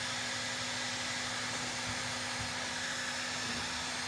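Heat gun running steadily, its fan blowing with a constant whir and a low hum; the heating element is hot again after the repair.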